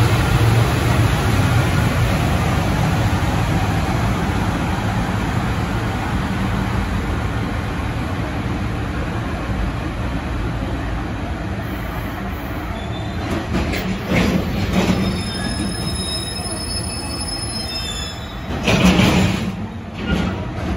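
Container freight train behind a JR Freight EF210 electric locomotive rolling slowly through the platform and coming to a stop: a steady rumble of wheels and wagons that gradually fades. Thin high brake squeals come in over the last several seconds, with a couple of short louder noises near the end as it halts.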